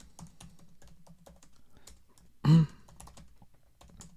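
Typing on a computer keyboard: a quick, uneven run of key clicks. About two and a half seconds in, a short, loud voiced sound like a brief hum cuts in.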